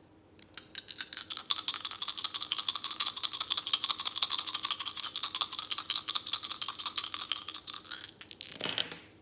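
A deck of cards being shuffled: a rapid, continuous run of card flicks lasting about eight seconds, ending with a short rustle as the cards are gathered.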